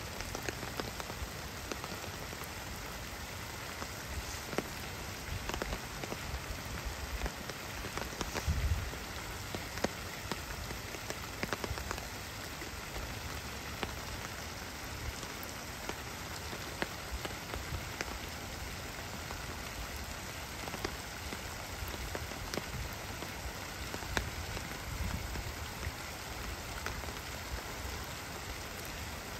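Steady rain falling on a pond and wet grass, an even hiss dotted with the fine ticks of single drops. A brief low rumble comes about eight seconds in.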